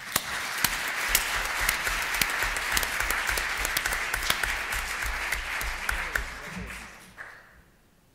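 Audience applauding, a dense patter of hand claps that dies away about seven seconds in.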